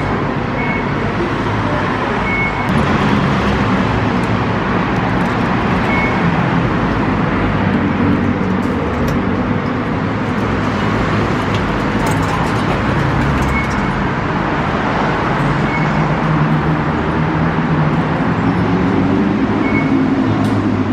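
Steady road-traffic rumble filling the station, with a short high electronic beep every few seconds.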